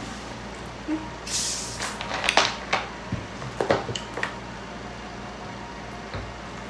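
A plastic bottle of Coca-Cola being opened: a hiss of escaping carbonation gas about a second in, followed by several sharp clicks and crackles as the cap is twisted and the bottle handled.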